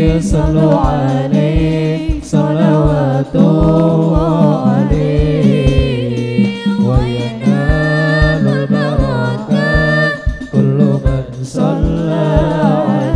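Sholawat, Islamic devotional singing: amplified voices singing a wavering melody to the steady beat of rebana frame drums.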